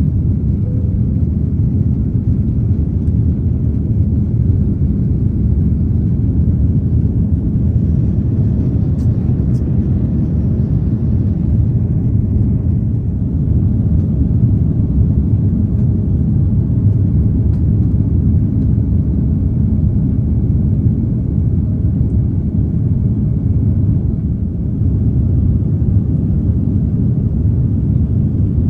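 Airbus A330-300 cabin noise heard from an economy seat: the steady, loud low rumble of the jet engines and airflow in flight.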